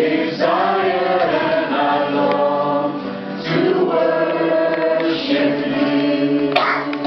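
A small group of voices singing a worship song together in unison, in long held notes with brief breaks between phrases.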